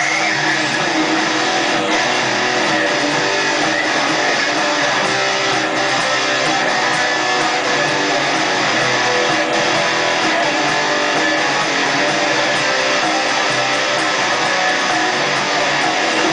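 Rock band playing an instrumental introduction: strummed guitars, with no singing.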